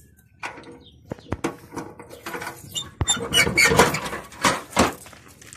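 A small studded metal door in a stone wall being rattled and pulled open by hand: scattered knocks and clicks, then a louder run of scraping and rattling with brief squeaks about three seconds in.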